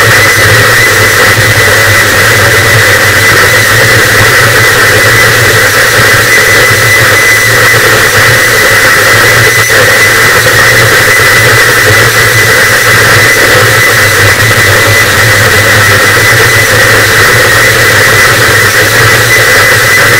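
Harsh noise wall: a loud, unchanging wall of heavily distorted static with a steady high tone running through it.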